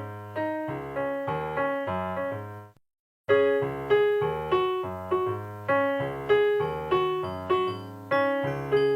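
Instrumental break of a pop song: a piano-like keyboard plays repeated chords, a little under two a second. The music cuts out completely for about half a second near the three-second mark, then comes back louder.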